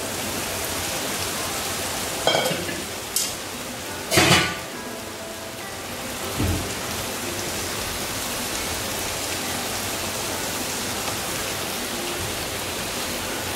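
Cooked clam meat and onion masala sizzling steadily in a non-stick wok while a wooden spatula stirs it, with a few scrapes and knocks of the spatula against the pan, the loudest about four seconds in.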